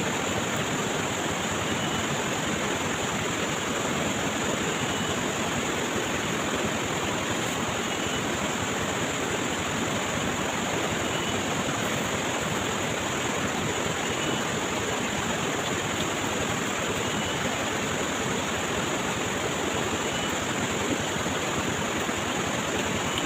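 Steady rush of flowing stream water, unchanging throughout, with a constant high hiss above it.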